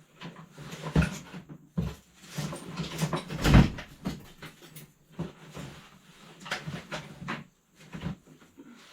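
Things being handled and shifted while rummaging through clutter: irregular knocks, scrapes and clatters, with the loudest thump about three and a half seconds in.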